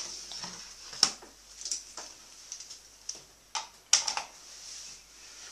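Scattered clicks and light knocks of handling at a kitchen table as an electric waffle iron is plugged in and switched on. The loudest clicks come about a second in and near four seconds in.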